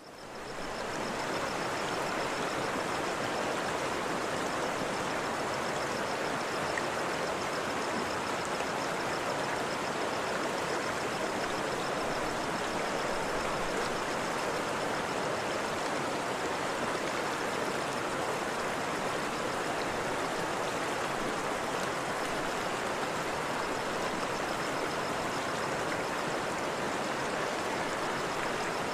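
Waterfall: a steady rush of falling water, fading in over the first second and then holding even.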